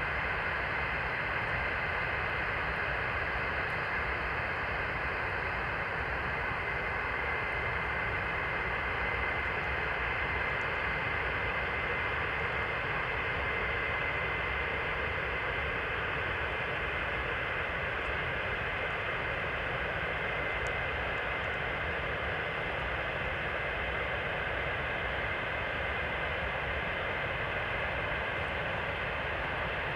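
Avro Vulcan XH558's Rolls-Royce Olympus turbojets running steadily on a ground engine test: a high, steady whine over an even rushing roar.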